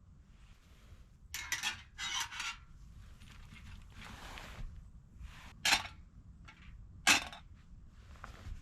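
Thin stainless-steel panels of a folding wood stove being handled and fitted together: several metal scrapes, then two sharp clinks a little over a second apart.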